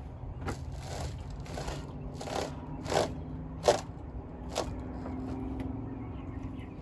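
Hand tools and metal parts clinking and scraping while a car's wheel hub is being taken apart, about seven separate knocks over a few seconds. A steady low hum runs underneath.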